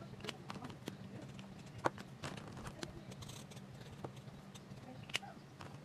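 Ohuhu alcohol markers handled over a sketchbook: scattered light clicks and taps, with two sharper clicks about two seconds in and about five seconds in, over a low steady hum.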